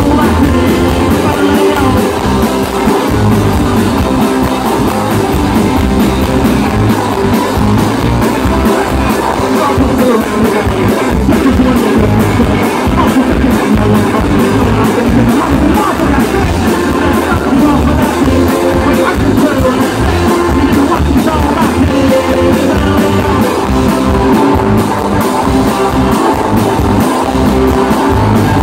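A rock band playing live: electric guitars, bass guitar and drum kit with a singer, loud and continuous throughout.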